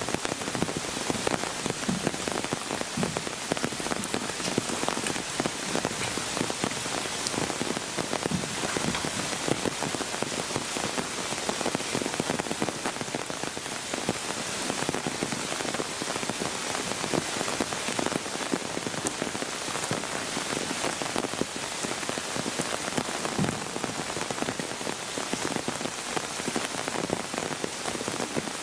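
Steady rain falling on surfaces, with a dense, even patter of drops.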